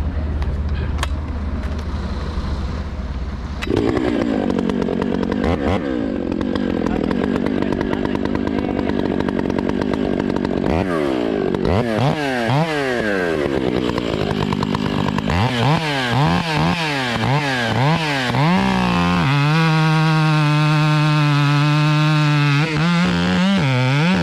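Stihl MS 661 two-stroke chainsaw with a 36-inch bar. It runs at low revs from about four seconds in, is revved up and down repeatedly, and is held at steady high revs for the last five seconds.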